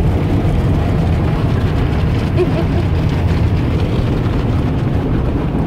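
Automatic car wash working over the truck, heard from inside the cabin as a steady, loud rush.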